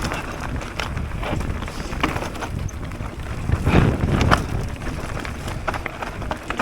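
Mountain bike riding down a dirt trail: wind rushing over the microphone, with the bike rattling and knocking over bumps, loudest over a rough stretch about four seconds in.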